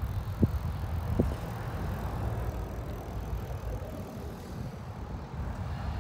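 Low rumbling wind and rolling noise from riding a bicycle while filming, with two short knocks about half a second and a second in.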